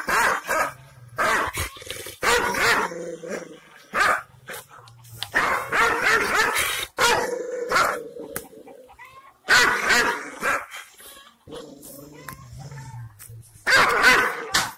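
A Kangal-type Anatolian shepherd dog barking and snarling, with low growls between the barks. It is the defensive aggression of a guard dog toward a stranger.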